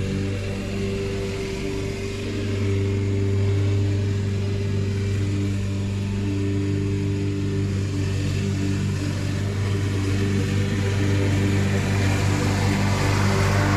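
Walk-behind gasoline lawn mower's small engine running steadily while cutting grass, with a slight unevenness in its note as it works.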